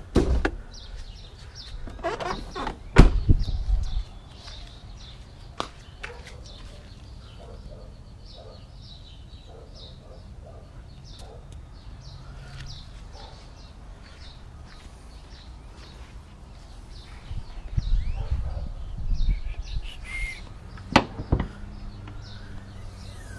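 Small birds chirping over a quiet background. The knocks and thumps of a pickup's hood release being pulled and its hood being handled come loudest near the start, then again near the end, ending in a sharp click.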